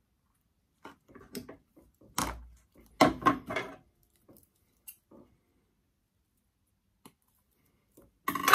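Irregular clicks, scrapes and rustles of hands wiring a young yew bonsai: bonsai wire being handled and wrapped while branches and needles move. The sounds come in short clusters with quiet gaps, loudest a few seconds in and again right at the end.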